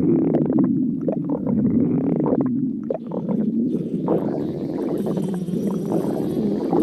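Stomach growling continuously in a low-pitched, crackly rumble that dips briefly about three seconds in.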